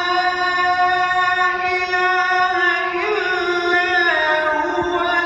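A single voice chanting long, held notes with wavering, ornamented turns, in a Middle Eastern style; the pitch steps down about four seconds in.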